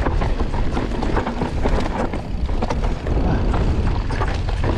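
Wind buffeting the action camera's microphone as a mountain bike rolls over a rocky, rooty dirt trail, with frequent short clicks and knocks from the tyres and bike over the rough ground.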